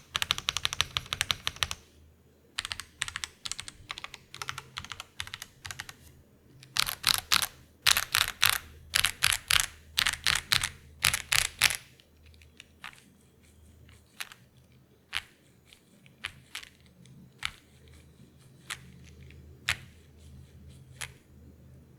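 Typing on a YUNZII YZ87 gasket-mounted TKL mechanical keyboard with stock YUNZII Milk linear switches and PBT Cherry-profile keycaps. It starts with fast, continuous typing. About a third of the way in comes a run of louder clusters of strokes, followed by single key presses spaced about a second apart.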